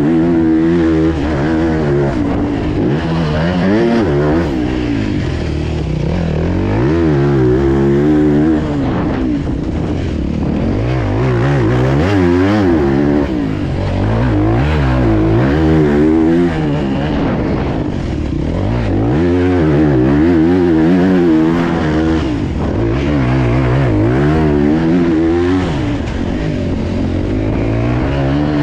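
Motocross bike's engine heard on board during a lap of a dirt track, revving up and dropping off again and again every few seconds as the rider accelerates out of turns and rolls off into the next.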